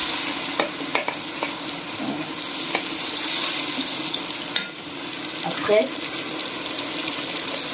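Tomato and vegetable sauce sizzling in a stone-coated nonstick pan while a metal spoon stirs it, clicking and scraping against the pan several times.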